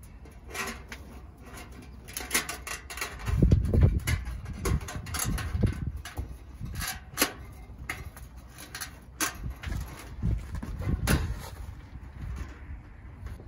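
Thin titanium stovepipe clicking and scraping against the titanium wood stove's top collar as it is seated and pressed into place by hand, in a string of sharp metallic knocks. Wind gusts rumble on the microphone twice, a few seconds in and again near the end.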